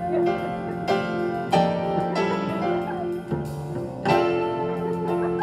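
Instrumental music: a melody of separate notes, each starting sharply and ringing on.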